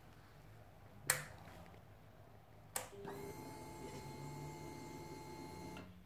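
Two sharp switch clicks, then a faint steady electric hum from the Kawasaki Ninja 300's fuel pump priming at key-on. The hum lasts about three seconds and cuts off.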